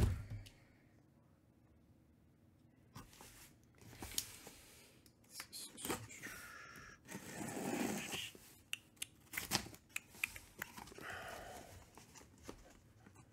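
Box cutter slitting the packing tape on a sealed cardboard shipping case, heard as a run of short scrapes and clicks while the cardboard case is handled, after a thump at the start.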